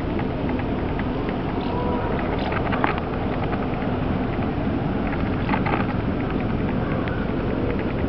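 Steady low rumble of wind buffeting the microphone, with a few short high sounds scattered through it.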